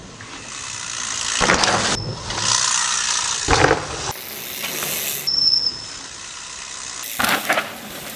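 Mountain bikes riding past close by on a dirt trail in several quick cuts: a rushing tyre-on-dirt noise that swells as each rider nears, with a clattering knock at each pass. A brief high squeal sounds in the middle.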